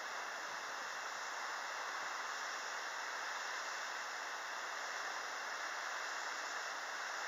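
Steady, even hiss with no distinct events: background noise of the recording itself.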